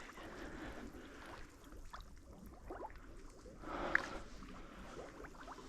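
Water sloshing and splashing faintly around a person wading in waders through flooded timber, with a louder splash about two-thirds of the way through.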